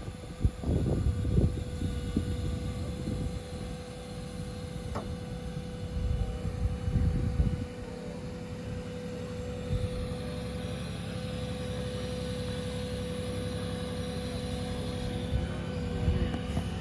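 Vault truck's engine and hydraulic crane running with a steady hum as the crane hoists a burial vault lid. Irregular low rumbles come and go in the first half.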